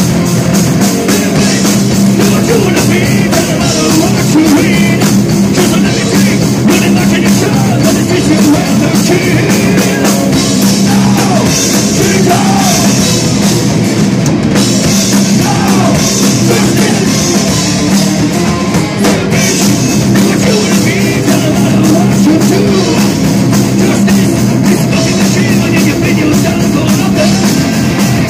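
Metal band playing live: electric guitars over a drum kit, loud and dense without a break.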